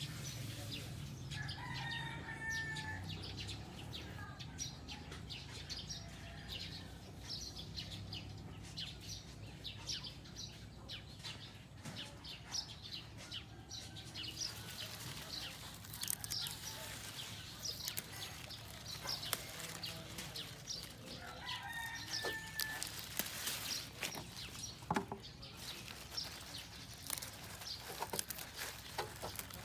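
Birds calling now and then, short chirps and calls, over frequent small clicks and rustles of lettuce leaves being handled, which grow busier in the second half as a hand works among the plants.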